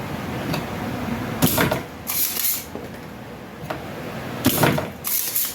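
Bench work on a microwave control board: short knocks, each followed by a hissy scraping burst about half a second long, the pair happening twice, as the board's transformer is worked loose for removal.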